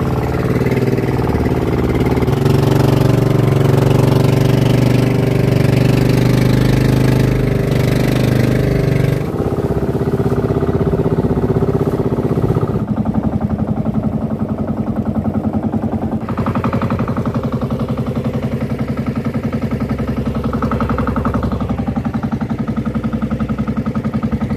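A fishing boat's engine running steadily once it has been coaxed back into life after an airlock, its speed and tone changing about halfway through.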